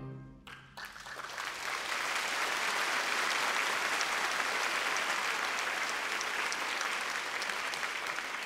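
The last chord of a wind band dies away in the hall's reverberation. An audience then breaks into applause about a second in, and the clapping holds steady, easing slightly near the end.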